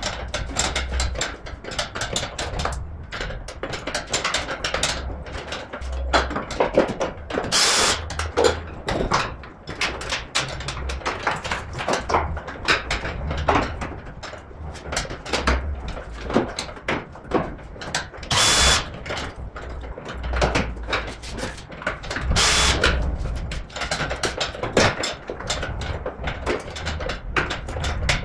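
Tool work on a car being dismantled: a steady run of clicks, ratchet clatter and metal-on-metal knocks from hand tools in the engine bay, with three brief louder bursts of a power tool about eight, eighteen and twenty-two seconds in.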